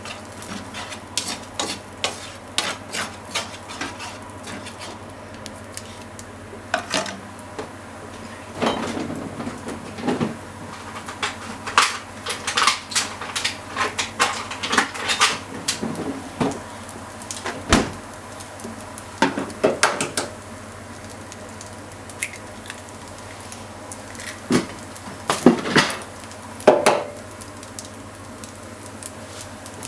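A utensil clattering and scraping against a frying pan as spaghetti and sliced pork are tossed and stir-fried, in irregular clicks and knocks, with a few louder knocks near the end.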